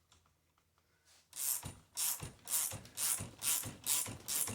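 Ratchet wrench working a strut spring compressor's threaded rod, clicking in quick strokes about twice a second, starting a little over a second in. The compressor is being run down to take the coil spring's pressure off the strut's top nut.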